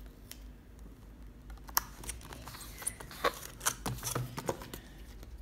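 Scattered light clicks and taps from handling thin plastic slime tubs and peeling sticker labels on a wooden table.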